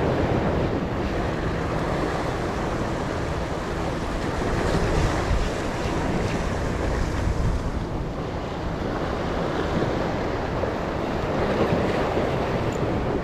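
Heavy sea waves surging and breaking against shoreline rocks, with wind buffeting the microphone in a steady low rumble.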